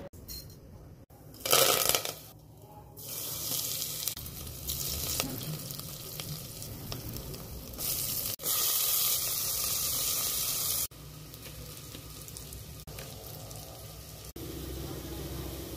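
Hot oil sizzling in a pan as a tempering of seeds, curry leaves and green chillies fries with chopped onions, heard in several short edited clips with abrupt cuts. The sizzle is loudest for a few seconds past the middle.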